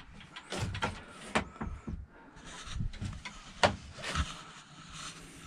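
Scattered knocks, clicks and rustling of someone moving about and handling things inside a small sailboat cabin, two knocks standing out about a second and a half and three and a half seconds in, over a faint low steady hum.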